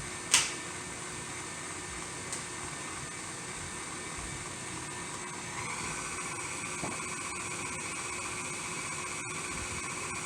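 KitchenAid stand mixer running steadily on low speed, mixing egg into the dry chocolate cupcake ingredients. A sharp tap comes about half a second in and a fainter one near two seconds; past the middle a higher whine joins the motor's hum.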